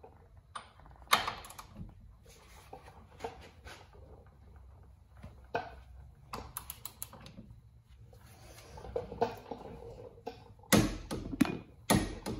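Socket wrench and hand-tool clicks and clanks while the caliper bracket bolts are fitted and tightened: scattered metal clicks, a quick run of clicks about six and a half seconds in, and a few louder knocks near the end.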